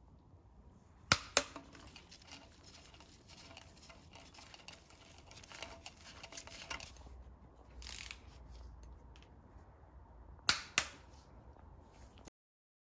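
Click-type torque wrench tightening cylinder-head bolts to their first-stage torque on a BMW M52 engine. Two sharp double clicks about nine seconds apart, as the wrench breaks at its set torque, with faint ratchet ticking between them. The sound cuts off suddenly near the end.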